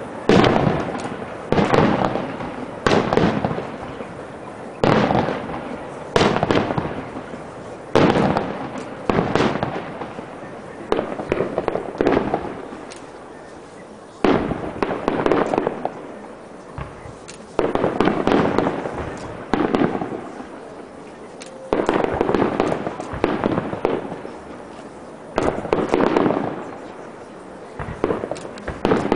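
Aerial firework shells bursting in a display, about twenty loud bangs at uneven gaps of one to two seconds, each trailing off over a second or so.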